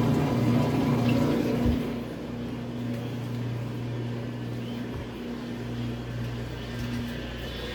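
Washing machine running: a steady motor hum with water churning, which gets quieter about two seconds in.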